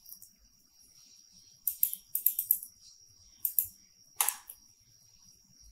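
Short bursts of quick clicks from a computer keyboard and mouse, with one sharper single click a little after four seconds.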